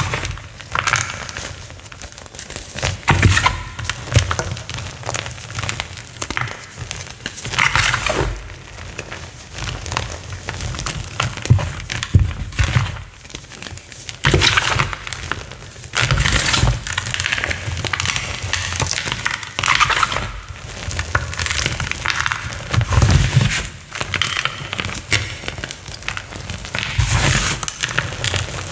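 Crunchy chalk being crushed and crumbled, in repeated crunching and crackling bursts every second or two.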